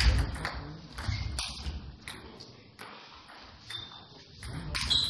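Table tennis ball clicking off the bats and table in quick succession during a rally, the clicks thinning out after about two seconds as the point ends, with a few scattered taps later.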